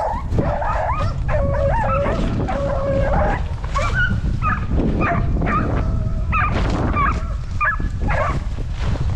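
Deer-hunting hounds baying, a run of drawn-out, wavering howls mixed with short yips, over a steady rumble of wind on the microphone.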